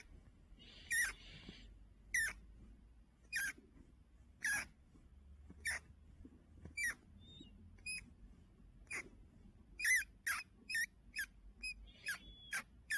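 Fancy rat giving short, high-pitched squeaks, each dropping in pitch, about one a second and then faster, about two a second, in the last few seconds. These are protest squeaks as the rat is lifted out from under a blanket.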